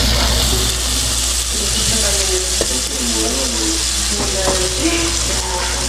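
Small shrimp sizzling in hot fat in a pot. The sizzle starts abruptly as they go in and then holds steady.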